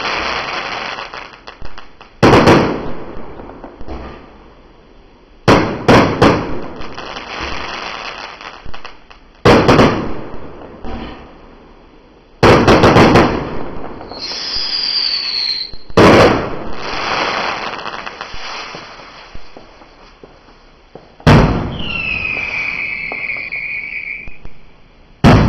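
A 1.4G low-noise consumer firework display, with about eight aerial bursts going off a few seconds apart, each a sharp report trailing off into a fading crackle. A falling whistle sounds twice, once around the middle and once near the end.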